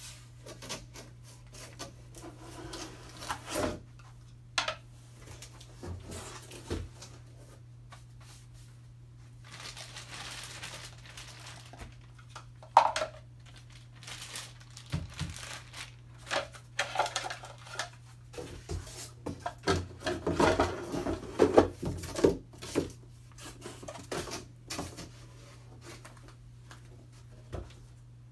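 Unpacking a 24-inch roll of photo paper: a cardboard box is lifted off and set aside, and the plastic-sleeved roll is handled and laid down on a wooden table, giving irregular rustling, scraping and knocking over a steady low hum.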